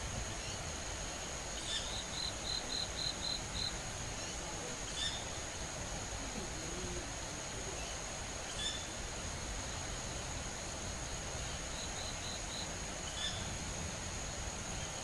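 High-pitched calls of a young owl: a quick run of about six short high pips a couple of seconds in and a shorter run of about four near the end, with a few single sharp calls in between. A birder identified them as the calls of a young owl, and notes that the calls change as the bird grows. A steady high-pitched drone runs underneath.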